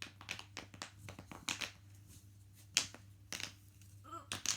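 Irregular sharp clicks and taps of plastic fidget toys being handled, with one louder click a little under three seconds in.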